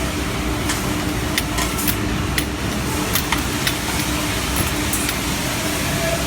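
Nikuni LAX sludge cleaner's gas-liquid pump running steadily with a constant hum, with several short sharp clicks over the middle of the stretch.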